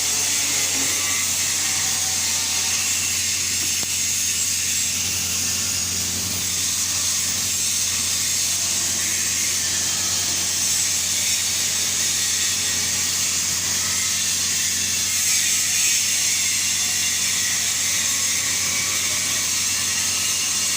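TIG (GTAW) welding arc burning steadily: an even high hiss over a low, constant hum.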